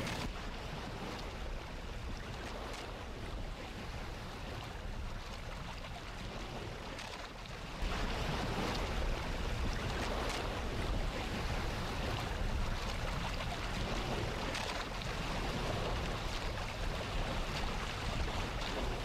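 Motor boat under way: a steady engine rumble mixed with the rush of water and wind. It gets louder about eight seconds in.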